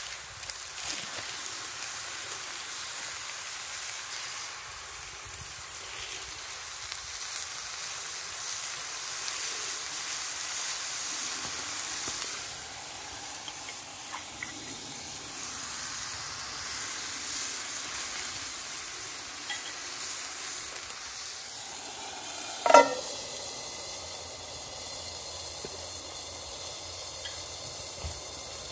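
Food sizzling steadily in a frying pan on a Trangia camping stove. One brief, louder clatter about 23 seconds in.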